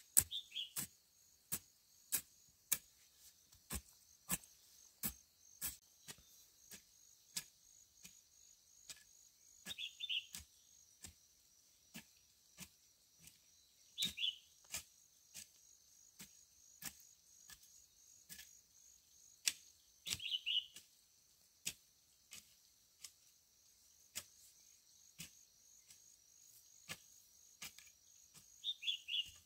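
Sharp knocks at an irregular pace, roughly one or two a second, over a steady high insect chirring. A short high descending call sounds five times, every four to six seconds.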